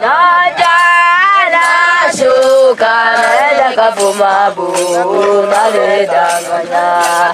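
Hadzabe group singing a chant, several voices together in a bending melody, with a lower voice joining about three seconds in and sharp percussive hits in the second half.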